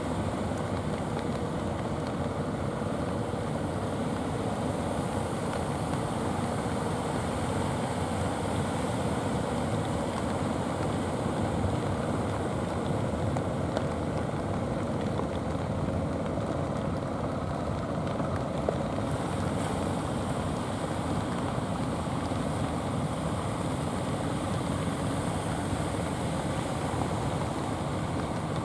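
Steady rush of sea surf and wind, with a faint drone of outrigger fishing-boat engines running offshore.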